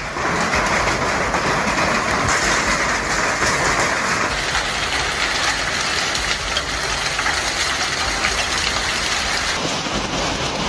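Heavy hail falling: a dense, steady clatter and hiss of hailstones striking the ground and roofs, made of many fine ticks. Its tone shifts slightly a few times.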